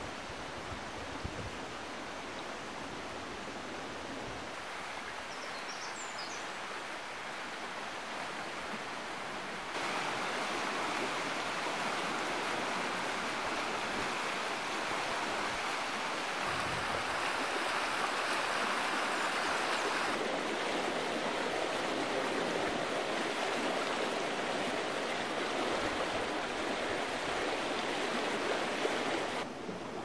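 Water rushing steadily in a mill stream, a constant noise that steps up louder about a third of the way in and drops back just before the end.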